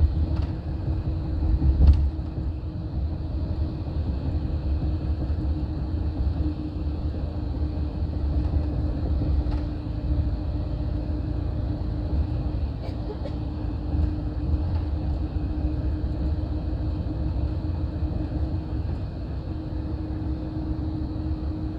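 Steady low rumble of engine and road noise heard from inside a Greyhound coach riding along the freeway, with a steady drone-like hum running underneath. A few faint knocks come through, the loudest about two seconds in.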